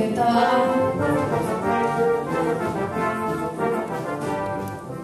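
Brass-led instrumental music playing a slow melody over held chords.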